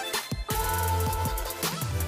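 Background music with a heavy bass line and a drum beat.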